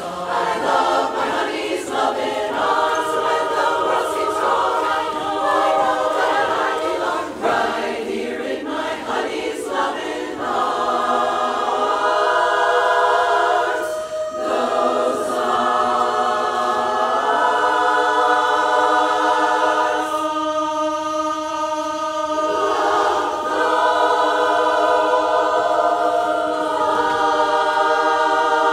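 Women's chorus singing a cappella in close harmony, moving through changing chords and then holding long sustained chords from about halfway through.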